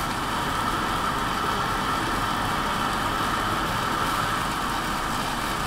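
Steady hiss of onions frying in a steel pot on a lit gas burner.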